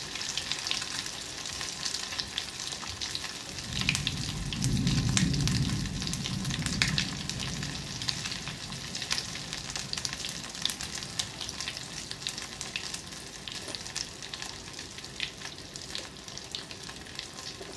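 A piece of marinated rohu fish sizzling and crackling in hot oil in a steel kadai, frying on low gas. A low rumble joins in from about four to eight seconds in.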